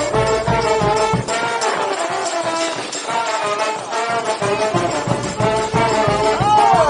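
Brass band playing in harmony over a drum beat. The drums drop out for a couple of seconds midway and come back, and a note slides down in pitch near the end.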